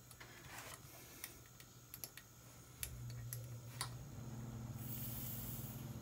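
Light clicks and taps of a hand tool on a bullet piercing valve clamped to a refrigerator compressor's copper line, as the valve is tightened. About three seconds in a steady low hum sets in, and a brief high hiss comes near the end.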